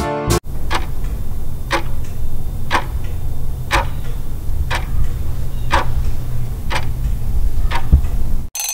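Clock ticking sound effect for a countdown timer: sharp ticks about once a second, eight in all, over a low steady hum. An alarm-clock ring begins right at the end.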